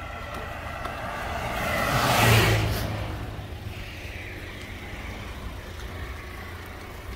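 A car passing by on the road, swelling to its loudest about two seconds in and then fading, over a steady low rumble.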